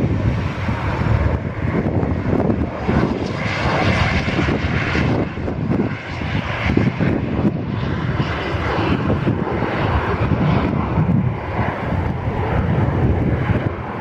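Eurofighter Typhoon's twin turbofan jet engines running steadily as the jet rolls along the runway after landing.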